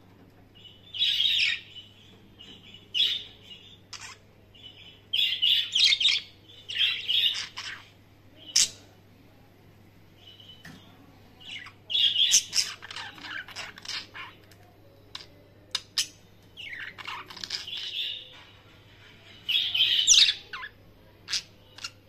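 Two pet budgerigars chirping and warbling in short bouts of rapid, scratchy chirps, with quiet gaps between bouts.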